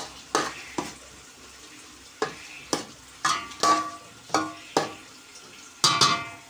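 A spoon stirring chopped tomatoes and peppers in a large metal pot, mixing in the salt just added: about nine sharp scrapes and knocks against the pot's side, each with a short metallic ring, the last a double stroke near the end.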